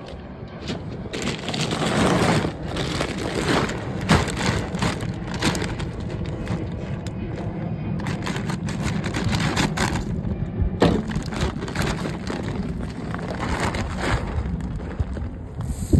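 Dry deer corn being poured out of a bag, the kernels rattling and crackling as they pour, over a steady low hum.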